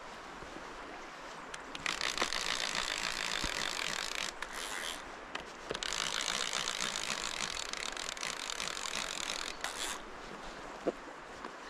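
Fly reel's click-and-pawl ratchet buzzing in long spells as a hooked fish is played on the rod. It starts about two seconds in and breaks off briefly a few times.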